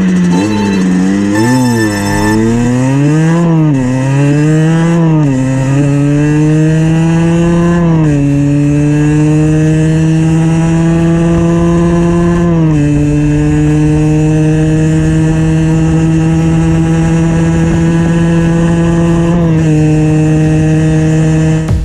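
Rieju MRT 50's two-stroke 50cc engine, breathing through an unrestricted Watts expansion pipe, at full throttle accelerating from a standstill through the gears. The pitch climbs quickly and drops back several times in the first few seconds, then makes longer climbs in the higher gears, falling back at each shift about 8, 13 and 19 seconds in. Ignition advance is reset to 32 degrees, running without detonation.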